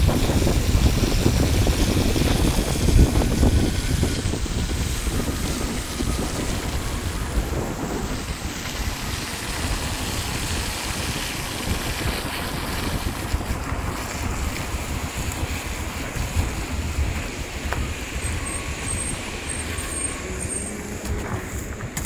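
Wind buffeting the microphone of a phone filming from a moving car, over the rumble of the car on the road. It is loudest in the first few seconds, then settles.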